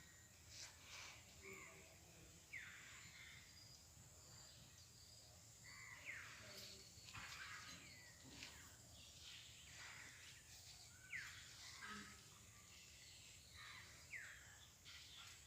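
Faint bird calls: short falling chirps repeated every few seconds over a low background hum.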